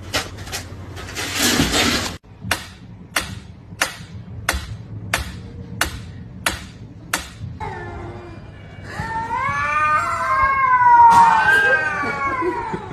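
A cat yowling: one long, wavering, drawn-out call in the last few seconds, the loudest sound. Before it comes a run of evenly spaced sharp clicks, about one and a half a second, and a brief hissing noise at the very start.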